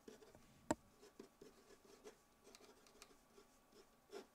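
Faint strokes of a felt-tip marker writing on paper, with one sharper tap a little under a second in.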